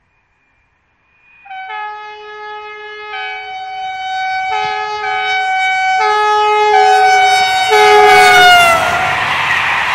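Train horn sounded in a series of long two-tone blasts as an SNCF passenger train of Corail coaches approaches, the pitch dropping as it passes near the end. The horn then gives way to the loud rushing rumble of the coaches going by.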